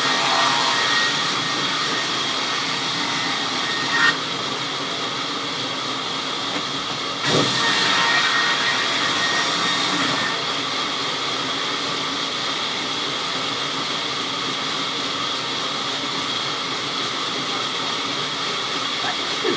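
Sawmill saw running steadily with a constant high whine. There is a sharp, louder hit about four seconds in and a louder, brighter stretch from about seven to ten seconds in.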